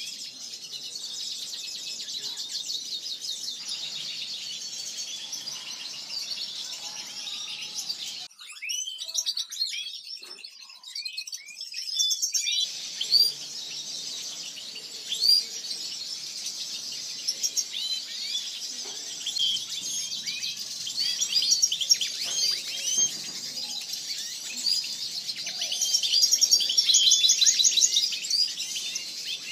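Many small aviary finches, European goldfinches among them, chirping and twittering in a continuous dense chorus, with a louder run of rapid trills near the end.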